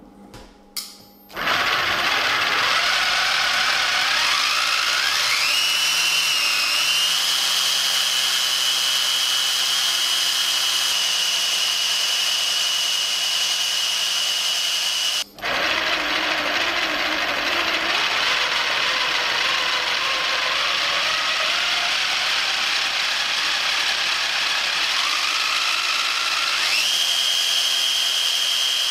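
Electric DC motor driving a 3D-printed 9:1 planetary gearbox and flexible-impeller water pump, starting up with a whine that rises in pitch over a few seconds and then runs steady. About halfway through it stops abruptly, starts again and winds up more slowly before settling at the same high whine.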